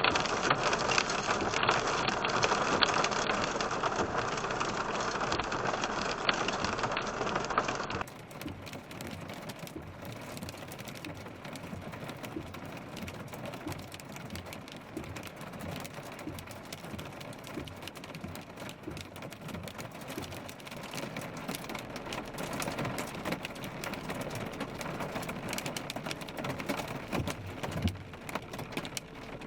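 Rain and pea-size hail pelting a car, heard from inside the vehicle. A loud, dense hiss gives way about eight seconds in, at a cut, to a quieter crackle of many separate hits.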